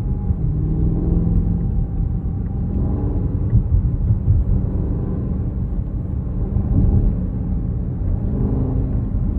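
Cabin noise of a BMW X6 M (F96): a steady low rumble from the car with a few faint, light ticks now and then. These ticks are the ticking noise in the cabin that the owner is trying to record.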